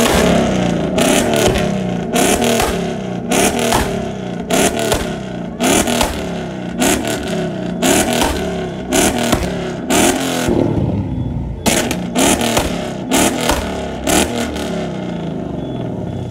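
Ford Mustang's engine revved hard in quick blips, roughly one a second, each rising and dropping back, with a sharp crack on most of them; the revving stops just before the end.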